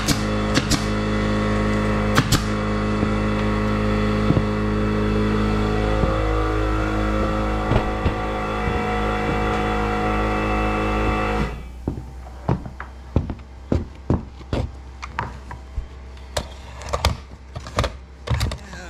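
An air compressor running with a steady hum that cuts off suddenly about two thirds of the way in, the sign of its tank reaching pressure. Throughout, a pneumatic brad nailer fires nails through OSB gusset plates into the truss lumber with sharp clicks, and after the compressor stops there are more scattered nail shots and knocks of boards being handled.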